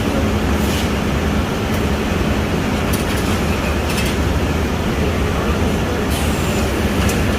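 Automatic shrink-wrap machine running: a steady, loud mechanical hum and hiss with a few faint clicks.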